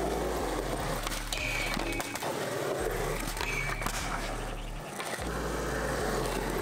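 Skateboard wheels rolling on concrete, over background music with a deep bass line whose notes change every second or two.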